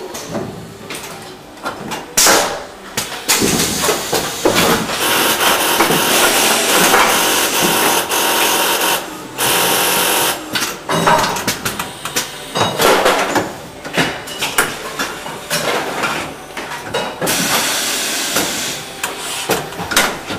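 Automated assembly and leak-test machine running: long stretches of air hissing, with many sharp clicks and clunks of moving tooling.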